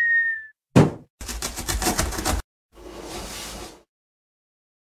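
Cartoon intro sound effects: a ringing tone fades out at the start, then a short loud thump about a second in, a rapid rattle lasting about a second, and a softer whoosh.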